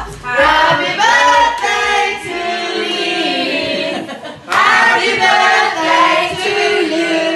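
A group of voices singing together loudly, with karaoke backing music under the first couple of seconds; the singing breaks off briefly a little after four seconds, then picks up again.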